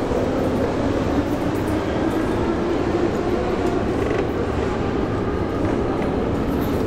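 Metro escalator running: a steady, continuous mechanical drone with a faint hum in it.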